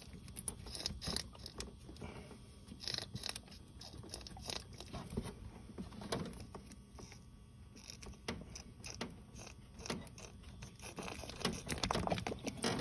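Irregular light clicks, taps and scrapes of fingers working a coolant temperature sensor and its plastic connector loose from the engine's coolant housing.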